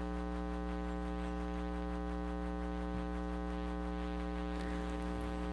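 Steady electrical mains hum with many overtones, a buzzing drone from the meeting room's microphone and sound system.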